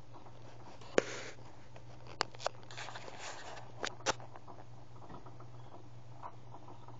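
A steady low hum with a loud sharp click about a second in, then four more clicks and brief rustling over the next few seconds.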